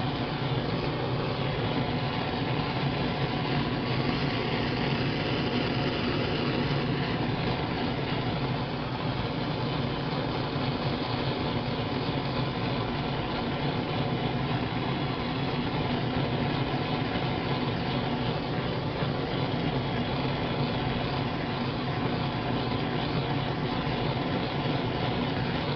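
Propane torch with a fairly large nozzle burning steadily, a continuous even rushing noise without a break.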